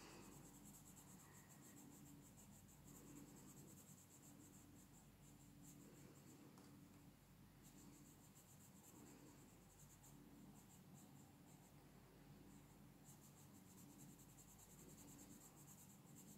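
Faint scratching of a coloured pencil on a colouring-book page, barely above room tone.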